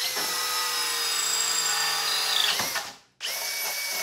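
Power drill turning a 1 3/8-inch hole saw through a rubberwood butcher block countertop, with a steady motor whine under the cutting. It stops about three seconds in and starts again a moment later.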